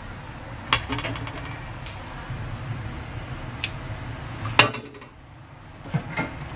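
Ceramic bowls and metal kitchen tongs knocking and clinking on a countertop as food is plated, in a few separate knocks with the loudest a little past the middle. A low steady hum underneath stops soon after that knock.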